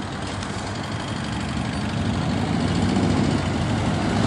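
Low engine rumble, slowly growing louder.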